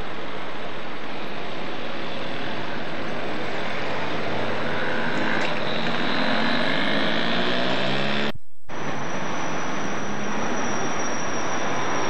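Steady street-traffic noise with a motor vehicle passing in the middle. The sound drops out completely for a moment about eight seconds in, at a tape edit.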